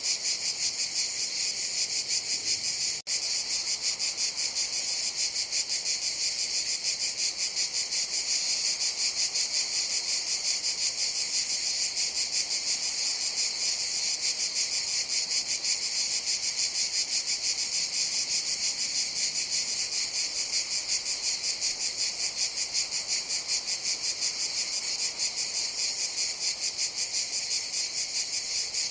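Chorus of cicadas buzzing, a steady, high-pitched, rapidly pulsing drone that drops out for an instant about three seconds in.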